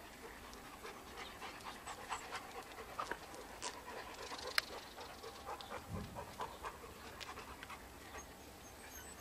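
Dog panting, mixed with a steady patter of small clicks and rustles as the dogs and puppies move about on grass. There is one sharp click about four and a half seconds in.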